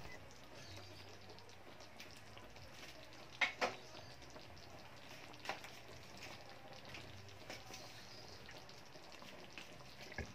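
Cornstarch-thickened sweet and sour sauce with fried fish simmering in a wok, a faint steady bubbling and sizzling. A few sharper pops stand out: two close together about three and a half seconds in and one about five and a half seconds in.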